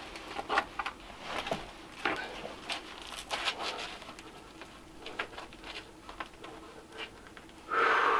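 Climber's hands and rubber climbing shoes scuffing and tapping on sandstone holds in scattered short scrapes and clicks, with a short loud strained grunt of effort near the end.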